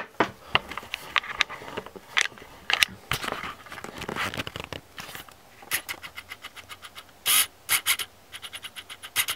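Close handling noises: scrapes and sharp clicks of objects being moved and worked by hand, with two runs of rapid, even clicking, about eight a second, in the second half.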